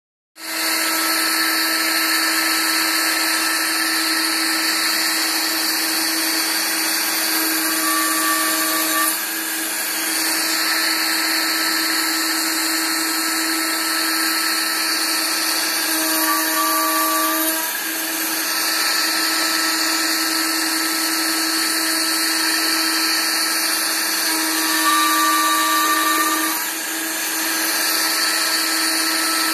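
Router mounted in a router table running steadily with a constant tone, milling finger-joint slots into a wooden board. Three cutting passes, about eight, sixteen and twenty-five seconds in, each add a higher singing tone, and the sound dips briefly as each pass ends.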